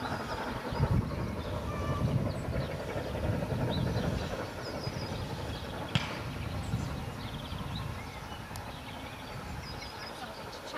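Steam locomotive S&D 88 working a train out of sight: a heavy low rumble that swells and then fades away over the second half. Small birds chirp throughout, with one sharp click about six seconds in.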